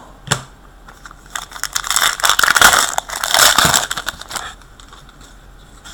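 Plastic trading-card pack wrapper crinkling and tearing as it is opened: a crackly rustle lasting about three seconds, after a single short tap about a third of a second in.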